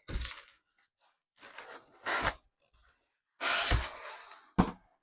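Packaging being handled as a light fixture's box is opened: cardboard and packing material rustling and scraping in a few short bursts, with a longer one about three and a half seconds in and a sharp knock near the end.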